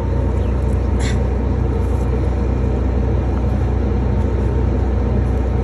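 A motor running steadily with a low, even hum. A brief light click comes about a second in.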